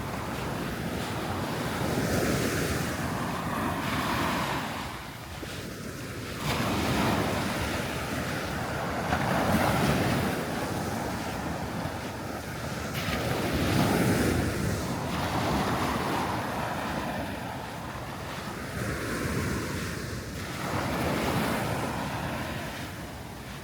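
Sea waves breaking and washing up the shore, the surf swelling and easing every few seconds, with wind buffeting the microphone.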